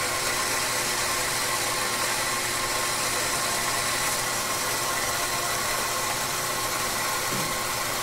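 Electric espresso grinder running steadily, its burrs grinding coffee beans straight into a portafilter with a constant whirring grind and motor hum.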